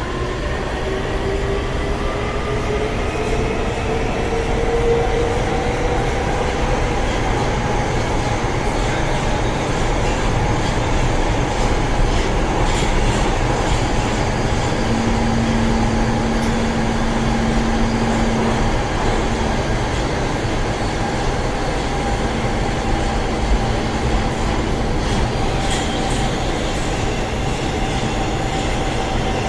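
Ride inside a moving metro train: a steady rumble of wheels on the rails with the electric traction motors whining. The whine rises in pitch over the first few seconds as the train picks up speed, then holds steady.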